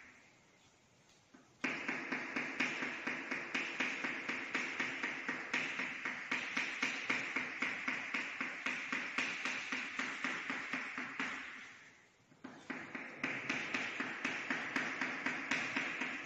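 Chalk tapping and scratching on a chalkboard in quick short strokes, about three to four a second, while drawing rows of small marks. It starts about a second and a half in and breaks off for about a second roughly three-quarters of the way through before going on.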